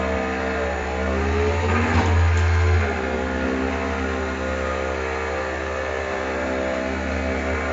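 Escalera StairCAT powered stair climber's electric drive running under a heavy load as it climbs the stairs: a steady motor hum and whine. The pitch wavers and the low hum grows louder about two seconds in.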